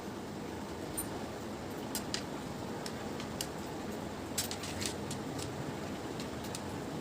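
People eating watermelon and picking out the seeds: scattered small clicks and taps over a steady background hum, with a quick cluster of clicks about four and a half seconds in.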